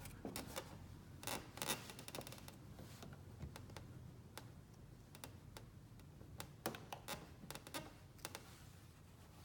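Fingertips working vinyl tint film onto a plastic turn signal lens: faint, irregular small clicks and crackles, in clusters near the start and again later.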